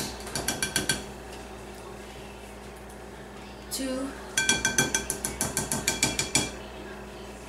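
A spoon rapidly tapping on the rim of a glass mixing bowl to knock scoops of margarine off into the flour, each tap making the glass ring. A quick run of taps right at the start, then a longer run of about a dozen, some seven a second, for about two seconds in the middle.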